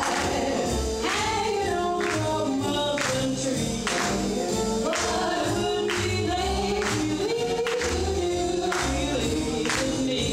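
Upbeat song with several singing voices over a steady, even beat.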